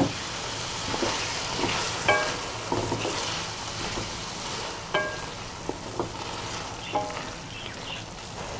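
Potatoes and cauliflower sizzling in a metal wok (karahi) as a wooden spatula stirs freshly added yogurt into the masala, scraping through the pan. Three times the pan rings briefly as the spatula knocks against it.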